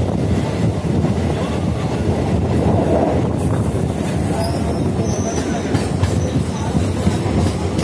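Suburban EMU local train running, heard from its open doorway: a steady rumble and rattle of wheels over the track, with a brief faint high wheel squeal about five seconds in.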